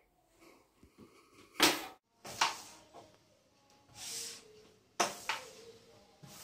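A carrom striker flicked across a carrom board, giving sharp clacks as it hits the coins and the board's rim. There are four or five clacks, the loudest about a second and a half in.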